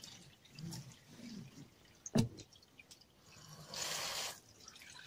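Faint water sounds from a soapy rag rug being washed by hand on a wet wooden washing table: dripping, a sharp knock about two seconds in, and a short wet rush a little before four seconds.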